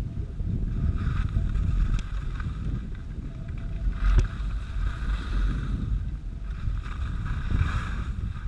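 Wind buffeting the microphone of a camera riding down a ski slope, with the hiss and scrape of edges on packed snow swelling and fading through the turns. A single sharp knock about four seconds in.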